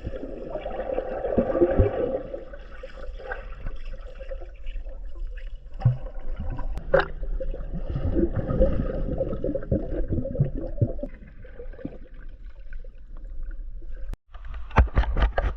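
Water sloshing and gurgling close to the microphone as swimmers drift in a strong tidal current, with a low rushing rumble that swells and fades. A short run of sharp clicks comes near the end.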